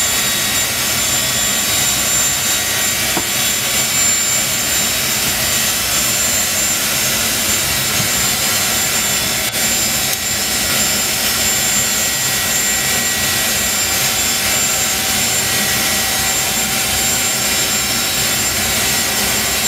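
Avro Vulcan's Rolls-Royce Olympus turbojets running steadily, heard from inside the cockpit: constant loud jet noise with thin, high-pitched whines held at an even pitch.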